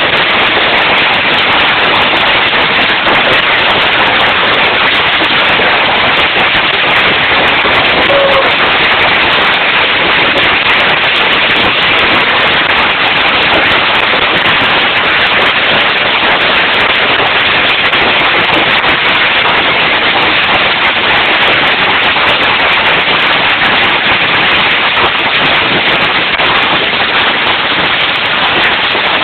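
Hailstorm: hailstones and rain pelting down hard, a loud, steady dense crackle of many small impacts that does not let up.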